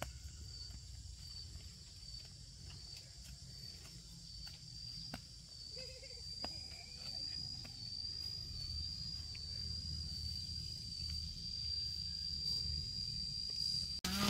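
Insects, cricket-like, droning steadily in one high, slightly wavering note, over a low rumble and a few faint clicks.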